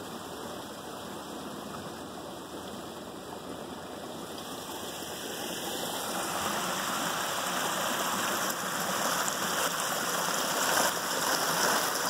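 Water of a small landscaped waterfall splashing down over rocks in a garden stream, a steady rush that grows louder about halfway through.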